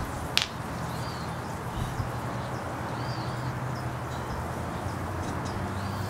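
A single sharp clack of a small painted beach stone knocked against stone or pavement, about half a second in. Short chirps from a bird come a few times under a low steady hum.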